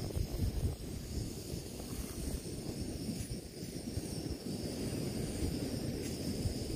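Portable camping gas stove burner running, a steady low rumbling roar of the flame.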